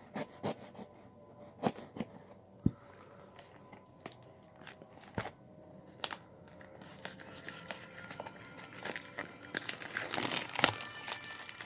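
Plastic wrapping on a trading card box crinkling and tearing as it is pulled off, with scattered sharp clicks and taps. The crinkling grows denser in the second half.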